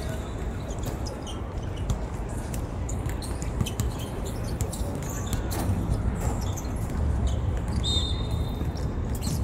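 Sounds of a football game on an outdoor hard court: scattered knocks of the ball being kicked and players' footsteps, with a brief high squeak about eight seconds in, over a steady low rumble.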